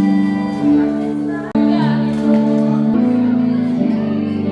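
Music with held chords and a singing voice, changing abruptly about one and a half and three seconds in.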